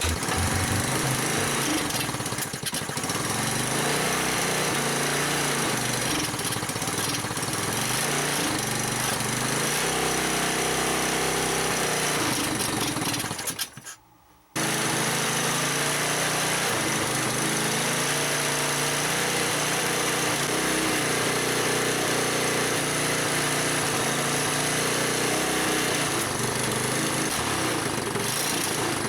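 Single-cylinder pit-bike engine in a Tula scooter running unevenly on its first start, its revs rising and falling. The sound drops out briefly about halfway through, then runs on. The engine runs poorly; the owner blames the carburettor, which needs adjusting.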